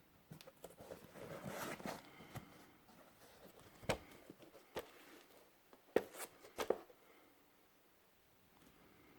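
Hands handling hiking boots: rustling and scraping for a couple of seconds, then five sharp taps or knocks over the next few seconds.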